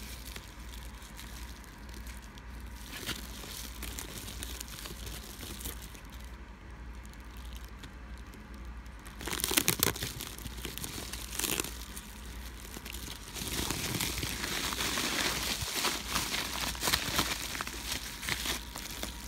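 Bubble-wrap packing crinkling and crackling as hands pick at it and pull it open, with a louder cluster of crackles about halfway through and denser crinkling over the last few seconds.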